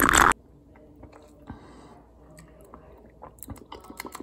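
A sip of iced coffee through a drinking straw: a short, loud sucking noise that cuts off abruptly in the first half second, followed by faint mouth and swallowing sounds, with a run of small clicks in the second half.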